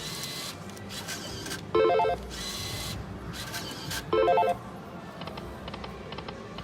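Slot machine bonus sounds: a short rising electronic chime jingle plays twice, about two and a half seconds apart, over fainter machine sounds and casino background noise.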